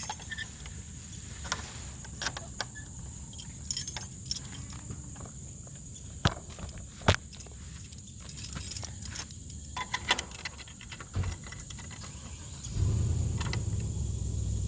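Small metal gate-latch hardware clinking and rattling, in scattered sharp clicks and jingles. A steady low rumble starts near the end.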